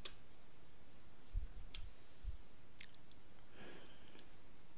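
Quiet room tone with a few faint, sharp clicks and soft low bumps.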